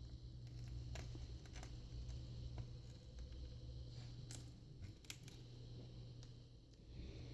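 Scattered faint clicks and light scraping of a thin prying tool working under the glass digitizer of a Samsung Galaxy Tab A 8.0 tablet, over a steady low hum.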